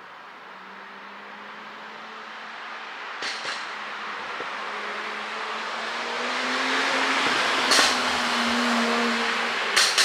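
Mercedes-AMG E53's turbocharged inline-six running, its exhaust note building steadily, punctuated by sharp exhaust pops: a pair about a third of the way in, a single one later, and another pair at the end. The pops come from the ECU's pop-and-crackle tune.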